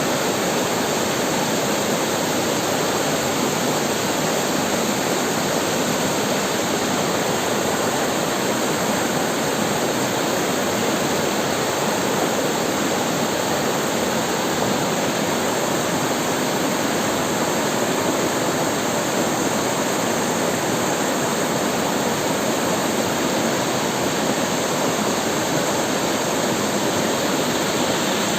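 River water rushing steadily over rocks, a constant even splashing flow.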